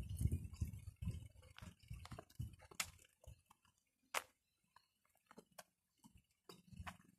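Footsteps crunching on a leafy dirt path, with irregular soft thumps and scattered sharp clicks that thin out after a couple of seconds.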